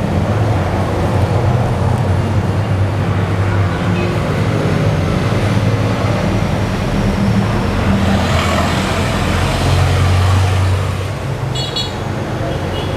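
Steady road traffic with vehicle engines running close by. A short, high horn beep sounds near the end.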